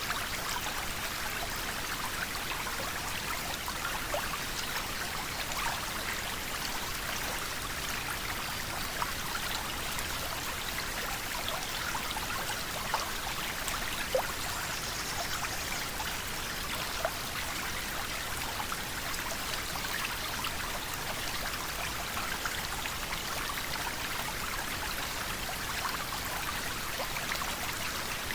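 River water flowing steadily, with a continuous rushing and small splashes and drips scattered through it.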